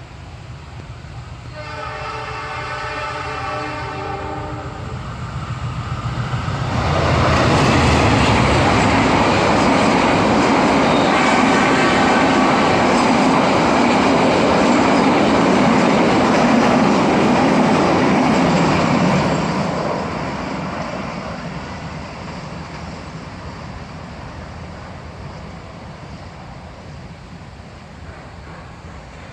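A train approaching sounds its horn for about three seconds. A few seconds later it passes close by with a loud, steady rumble and rattle of wheels on rails for about thirteen seconds, then fades away.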